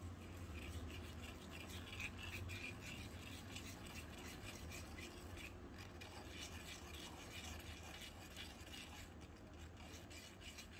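A small metal spoon stirring dry yeast into liquid in a metal bowl, scraping against the bowl in quick, continuous strokes.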